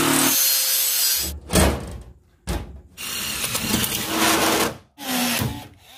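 Power tools working sheet aluminum in a run of separate bursts: a loud stretch of about a second at the start, two short bursts, a longer run of nearly two seconds, and a last short burst, with brief quiet gaps between.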